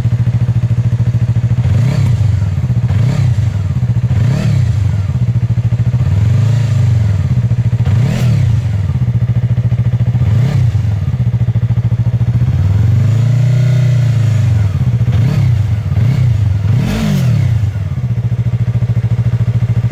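Yamaha YZF-R3's parallel-twin engine through an Akrapovic carbon slip-on exhaust with its baffle removed, idling and blipped about ten times, each rev rising and falling back to idle, one held a little longer past the middle.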